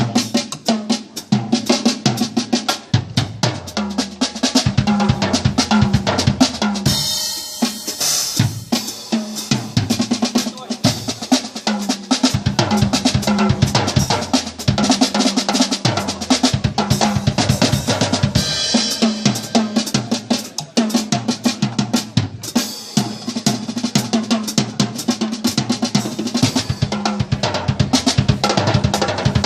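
Compact Percubo drum kits played hard in a fast, busy drum jam: bass drum, snare with rimshots and rolls, and cymbal crashes about seven, nineteen and twenty-two seconds in.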